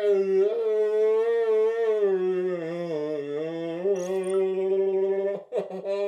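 A man's voice holding one long, steady note into a homemade voice visualizer, wavering slightly in pitch, and breaking off about five and a half seconds in.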